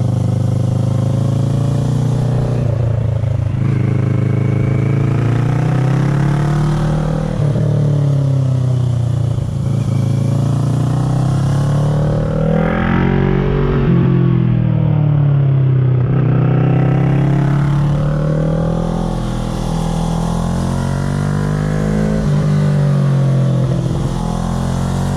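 2010 Kawasaki ER-6n's parallel-twin engine breathing through an SC Project carbon exhaust with the dB killer fitted, under way on a mountain climb. The revs rise and fall repeatedly as the bike accelerates and rolls off, with the highest run about halfway through.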